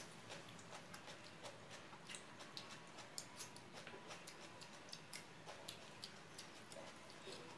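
Quiet eating sounds: irregular small wet clicks and smacks of chewing a mouthful of rice and chicken curry, and of fingers mixing rice on a plate.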